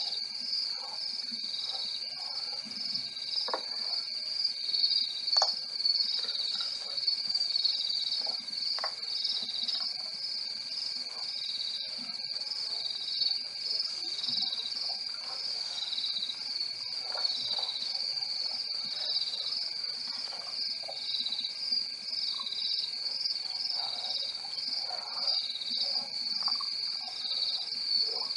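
A night chorus of crickets: a steady, high, rapidly pulsing chirring with a second, lower continuous trill beneath it. Scattered faint short clicks and calls come and go.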